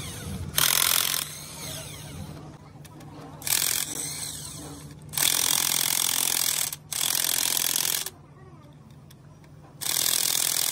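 Corded electric impact wrench hammering on the housing bolts of a truck gearbox, in about five bursts of half a second to a second and a half each, with short pauses between them.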